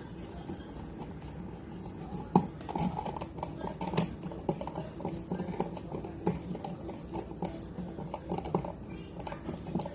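A run of irregular light knocks and taps that begins a couple of seconds in with one sharper knock.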